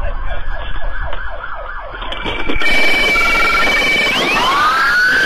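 Police car sirens: a quicker repeating sweep in the first two seconds, then slow rising and falling wails from more than one siren overlapping.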